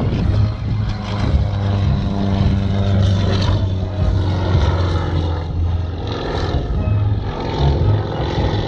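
Engine and propeller of a small aerobatic plane running steadily as it flies its display.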